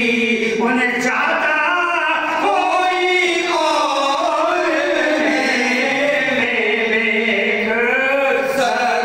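A man singing a naat, an Islamic devotional hymn, solo in long held notes that bend and waver in pitch.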